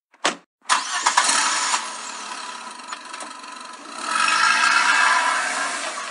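Old car's engine starting as a sound effect: a short burst, then the engine catches and runs, swelling louder about four seconds in.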